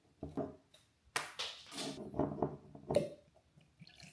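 A whiskey bottle being opened: the seal and stopper are worked loose with a series of scraping, rustling handling sounds, then a sharp knock or pop about three seconds in.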